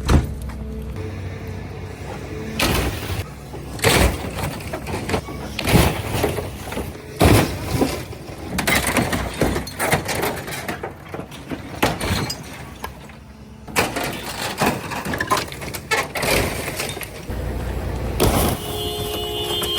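An excavator crushing a scrapped car: repeated crunching bangs of metal and breaking glass over the excavator's engine running. About a second before the end, the car's horn starts blaring steadily, set off because the car still has a live battery.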